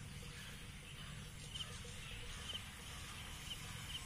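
Faint outdoor ambience: short, high bird chirps a few times over a low, steady rumble.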